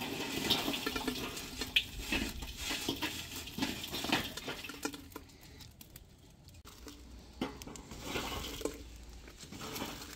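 Charcoal lumps being poured into a charcoal grill, clattering densely for about five seconds, then only a few scattered clicks.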